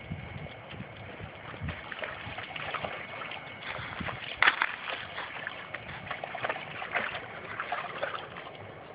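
A Labrador retriever wading into shallow lake water, its legs sloshing and splashing lightly and irregularly, with one louder splash about halfway through.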